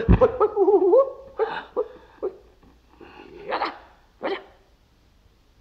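A man's shrill, warbling martial-arts battle cry trailing off in the first second, then a few short sharp cries, the loudest two around three and a half and four seconds in.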